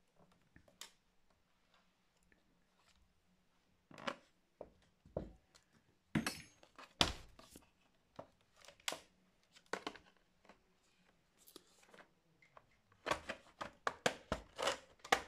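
Plastic laptop casing being handled and pried at with a tool: irregular clicks, knocks and scrapes, bunched into short flurries around the middle and again near the end.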